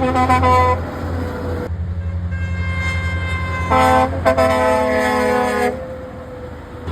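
Lorry air horns honking: a quick run of short toots in the first second, then a long horn blast that comes in about two seconds in and grows loud at about four seconds before cutting off near six. A steady low drone of truck engines and motorway traffic runs underneath.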